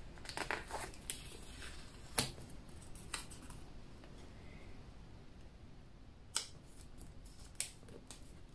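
Faint rustling of paper stickers being handled and pressed down on a planner page, with several short, sharp clicks and taps scattered through.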